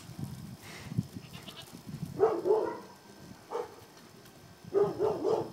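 Goat bleating: a long, wavering bleat about two seconds in, a short call a second later, and another long wavering bleat near the end.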